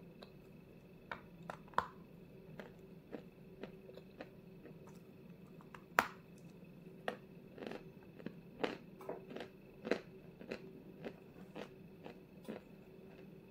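Close-up crunching as a crumbly white lump of edible mineral ('Zefirka') is bitten and chewed: irregular sharp crunches and clicks, the loudest one about six seconds in, over a faint steady hum.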